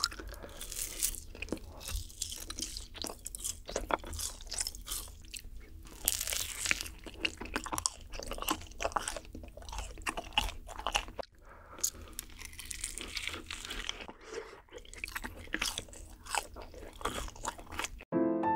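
Close-miked crunching bites and chewing of yakgwa, Korean honey-fried cookies, some with ice cream on top. The eating cuts off suddenly near the end as music begins.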